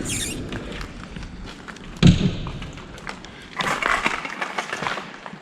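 Footsteps and scuffing on foot, with one heavy thud about two seconds in and a stretch of rustling and scraping later on.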